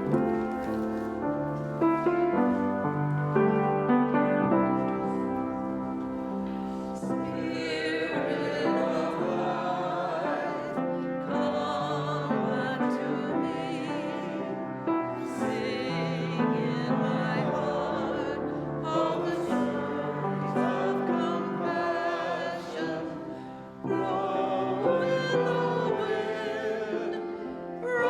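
Music with a piano accompaniment; about seven seconds in, a classical-style singing voice with vibrato comes in over it and carries on to the end.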